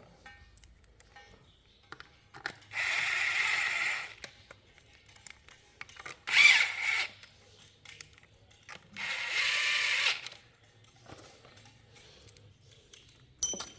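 A handheld power tool runs in three short bursts of about a second each, the middle one speeding up and then slowing. A sharp click comes near the end.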